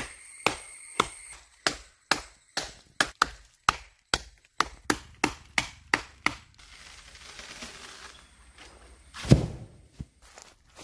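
Machete chopping into the base of a slender tree trunk, sharp blows about two a second for some six seconds. After a short pause a single heavy thud, the loudest sound, as the cut tree comes down.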